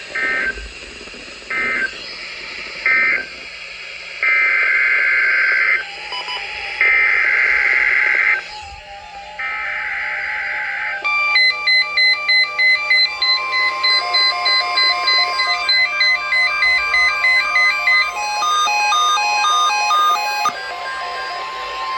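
Emergency Alert System data tones: three short buzzy bursts that end the warning, then three longer bursts of header code that open the next alert. From about halfway, a rapid alarm of stepped beeps at about two a second plays over a steady single tone, the NOAA Weather Radio attention signal, until the next announcement.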